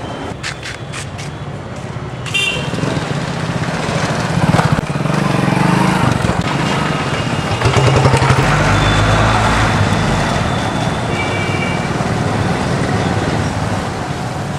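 Hero Honda motorcycle engine running as the bike rides up and stops, loudest about halfway through, with short vehicle horn toots, one a couple of seconds in and another near the end.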